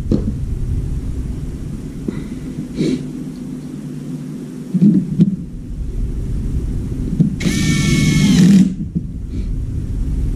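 Cordless drill-driver spinning for about a second, backing screws out of a washing machine door ring, about three quarters of the way in. Before it come a few knocks and clicks of plastic door parts being handled, over a steady low rumble.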